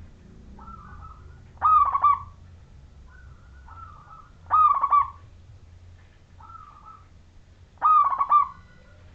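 Zebra dove (perkutut) cooing its clear song: three loud, rapidly pulsed coo phrases about three seconds apart, with fainter coos in between.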